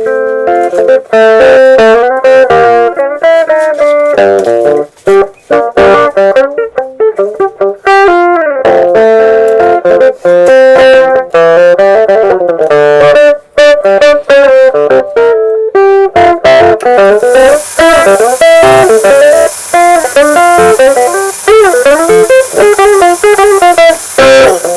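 Background music: a guitar picking a busy melody of quick notes, some of them bent or slid in pitch. A light hiss joins the recording about two-thirds of the way through.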